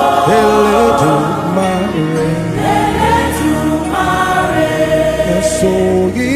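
A gospel choir singing a praise song in long held phrases over instrumental backing.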